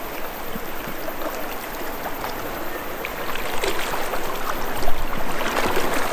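River water running steadily. From about halfway through, louder splashing as legs in waders push through the shallow current.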